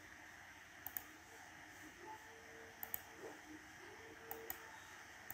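Three pairs of faint computer mouse clicks, each a quick press and release, over quiet room hiss.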